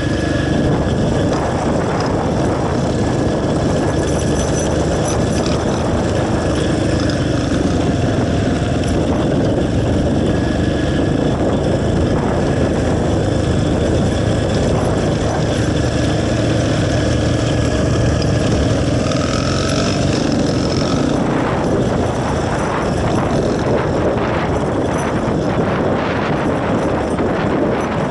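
Motorcycle engine running while the bike is ridden, its pitch drifting up and down slightly. From about 21 seconds in, a rapid run of knocks and rattles is added over it.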